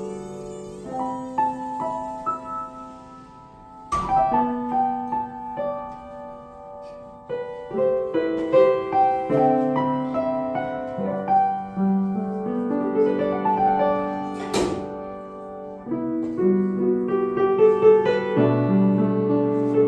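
Solo piano music: a melody over layered chords, with two sharp clicks, one about four seconds in and another about ten seconds later.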